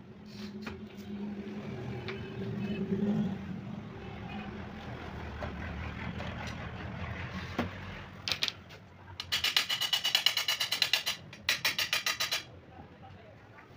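Hand glass cutter scoring a sheet of clear glass along a straightedge, a scratchy grating sound. Near the end come two runs of fast, sharp clicks against the glass, the louder the first.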